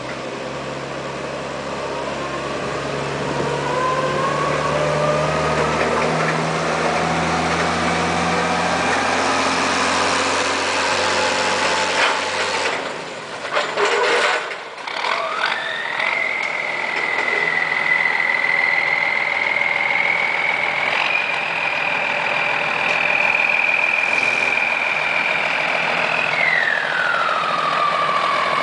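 An M35A2 military truck's multifuel diesel engine, with a forklift pushing it to bump-start it because the starter doesn't work. Engine sound runs throughout, a few knocks come about halfway through, and then a high whine rises, holds steady, and falls away near the end as the truck runs.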